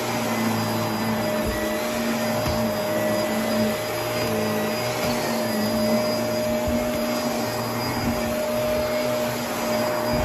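Upright vacuum cleaner running steadily as it is pushed back and forth over carpet, its motor holding a constant hum, with a few soft low thumps as the nozzle moves.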